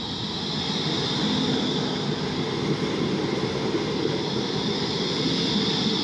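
Low-floor electric tram, DVG car 2010, rolling slowly past close by: a rumble of wheels on the rails with a steady high whine over it, growing louder in the first second or so as the tram comes alongside.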